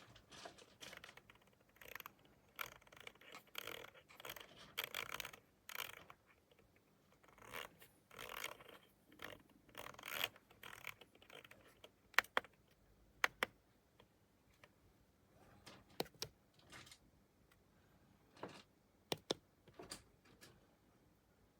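Hands handling an Elgato Stream Deck + controller: soft rubbing and scraping for several seconds, then a handful of sharp clicks, a pair of them close together near the end.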